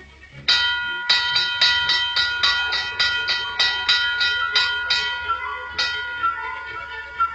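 A bell struck rapidly and repeatedly, about three strikes a second, each strike at the same pitch ringing on into the next. The strikes stop about six seconds in and the ringing fades.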